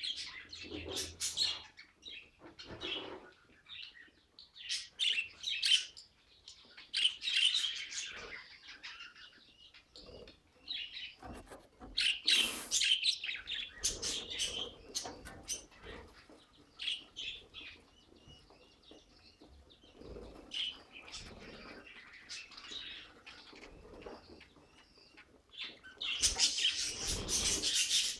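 Pet budgerigars chirping and chattering in irregular bursts of short high calls, with a louder, busier stretch near the end.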